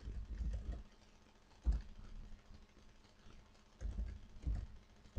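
Computer keyboard being typed on in a few short, quiet runs of keystrokes.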